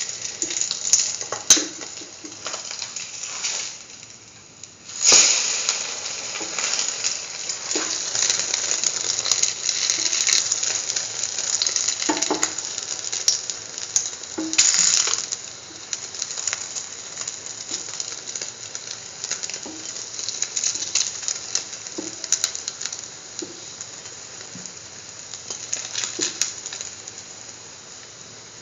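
Egg-dipped bread sandwich sizzling as it shallow-fries in hot oil in a pan: a steady frying hiss with scattered pops and clicks. It fades briefly about four seconds in, then comes back loud.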